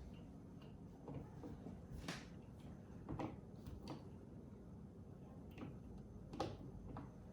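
Faint, scattered clicks and light knocks from a screw being worked back into a kitchen rail fitting by hand, with the loudest about two, three and six and a half seconds in.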